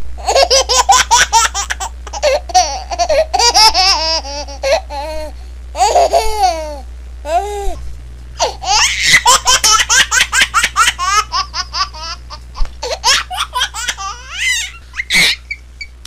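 A baby laughing: quick runs of rapid laugh pulses, broken by short pauses, several fits in a row.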